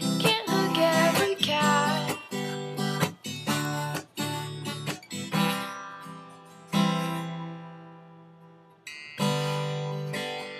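Acoustic guitar strumming chords, with a voice singing over them in the first two seconds. After that, single strummed chords are left to ring out and fade, the last two struck at about the two-thirds mark and near the end.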